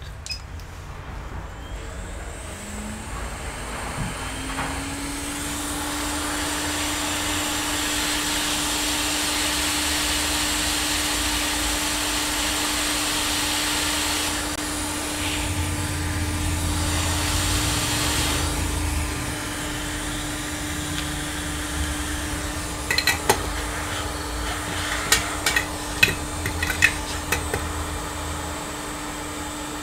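Hot air rework station blowing on a laptop motherboard to desolder a small component: a steady rush of air that builds over the first few seconds, with a steady hum from about four seconds in. A few light clicks and taps come near the end.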